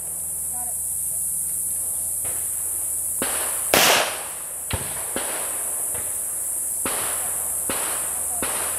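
Gunshots: about seven sharp reports, one loud close shot nearly four seconds in and the others fainter, over a steady high hiss.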